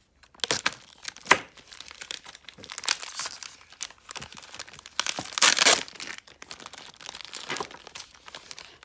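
Plastic toy packaging crinkling and rustling in the hands as parts are unwrapped, with a louder burst of crinkling about five seconds in.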